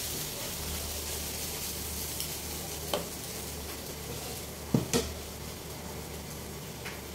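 Steady hiss from a gas stove burner under a hot, empty nonstick frying pan. There is a sharp knock about three seconds in and two louder knocks close together near five seconds, as cookware is knocked against the stove.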